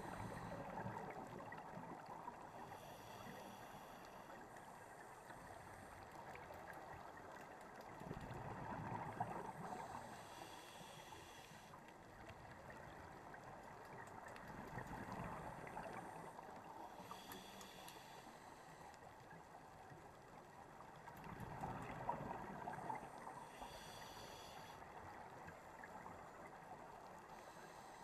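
Scuba diver breathing through a regulator underwater: a short hissing inhale with a buzzy whistle, followed a few seconds later by a gurgle of exhaled bubbles, repeating about every seven seconds.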